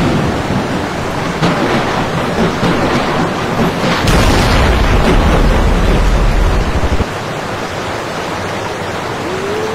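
Storm-at-sea noise: a loud, steady rush of heavy waves breaking, with a deep rumble from about four to seven seconds in.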